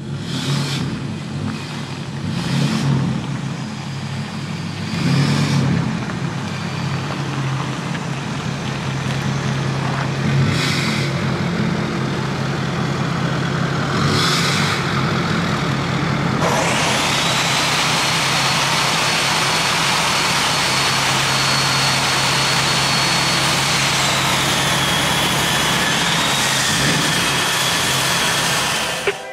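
Ford Super Duty dually's Power Stroke diesel V8 running, with several short revs in the first half. From a little past halfway it turns into a louder, steady running sound with a high held whistle over it.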